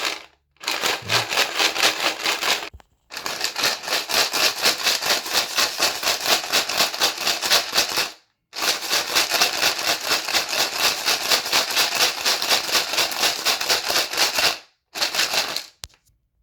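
Loose typewriter keys rattling inside a bottle of cleaning spray as it is shaken hard, a fast steady rattle in four bouts with brief pauses between.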